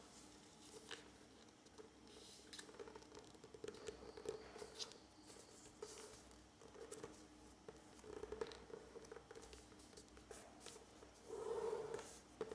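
Origami paper being handled, folded and creased by hand: faint, irregular rustles and crinkles, with a louder rustle near the end, over a faint steady hum.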